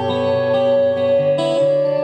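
Acoustic guitar and electric guitar playing an instrumental passage together, held notes ringing on, with a chord change about one and a half seconds in.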